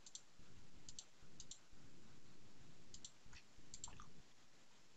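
Faint computer mouse clicks, a handful of them at irregular times, several coming in quick pairs.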